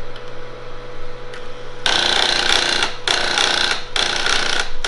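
HP 9825's built-in thermal printer printing the tape directory listing, a buzzing rattle that starts about two seconds in and runs in three stretches with short breaks between them.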